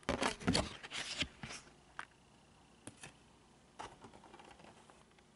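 Cardboard puzzle box and its paper box stand being handled: a burst of rustling and scraping in the first second and a half, then a few separate taps and a short light rustle.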